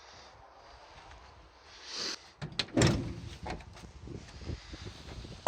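A vehicle door being handled: a few clicks, then a heavy clunk about halfway through, followed by smaller knocks and rattles.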